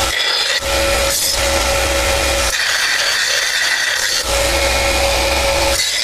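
A power tool abrading a saddle, running in repeated passes of about one and a half seconds with short breaks between, a steady tone sounding over the rasp of the cut.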